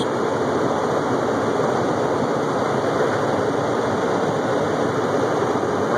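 Floodwater rushing and flowing, a steady, unbroken roar of water.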